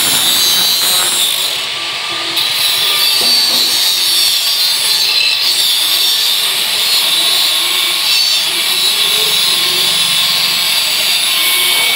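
Handheld angle grinder sharpening a steel sickle blade: a steady high whine with the harsh hiss of the disc grinding on metal, easing off briefly about two seconds in.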